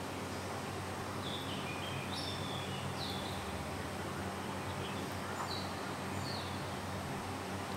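Steady background hiss and low hum with small birds chirping now and then: short, high, falling notes scattered through.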